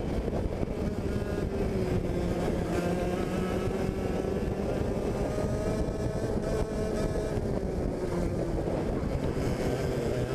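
Two-stroke racing kart engine heard onboard, its pitch falling and rising several times as the kart slows for corners and accelerates out.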